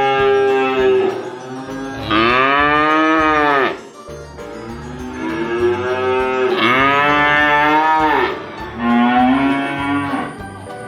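Cattle mooing: a run of about four long, drawn-out moos one after another, several rising then falling in pitch.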